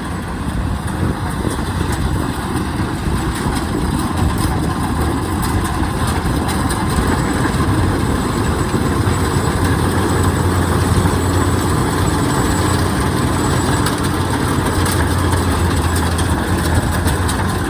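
Kubota DC-93 combine harvester's diesel engine running steadily under heavy load as the machine works through soft, sinking paddy mud where it is struggling. The level rises slightly about a second in and then holds.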